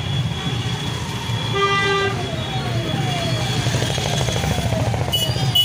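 Street traffic with engines rumbling, a vehicle horn tooting once for about half a second about a second and a half in, and a repeated falling chirp running underneath. A couple of sharp clicks come near the end.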